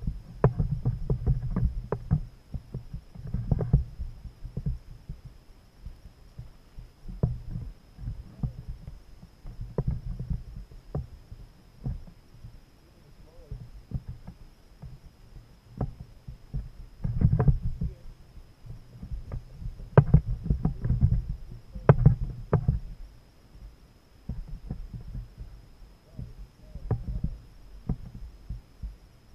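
Irregular low thumps and knocks on a kayak hull as the seated angler shifts and handles his fishing rod and reel, with sharp clicks among them, in clusters that come and go.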